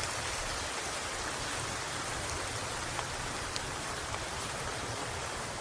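Steady rain falling, an even hiss with a few drops ticking close by.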